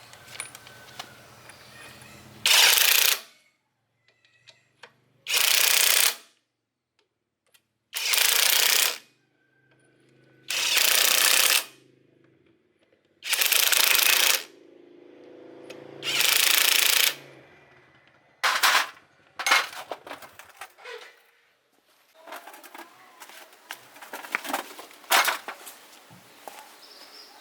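Short, loud bursts of a power tool, each about a second long and repeated every two to three seconds, with quieter gaps between; after about eighteen seconds the bursts become shorter and more broken.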